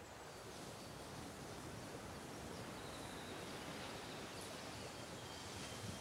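Faint, steady woodland ambience: a soft even hiss of air and leaves, with a few thin, faint high tones now and then from distant birds or insects.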